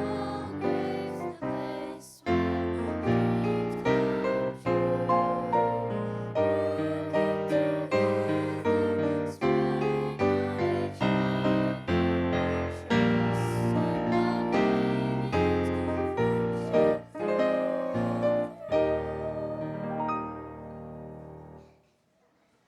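Piano music with struck chords and a moving melody, fading out and ending about 21 seconds in.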